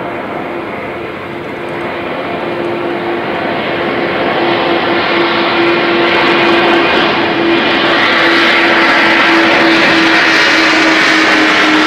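Antonov An-124's four D-18T turbofan engines at takeoff power as the freighter climbs out. A loud rushing noise with a steady hum, growing louder and brighter as it comes closer, the hum just starting to drop in pitch near the end as it passes.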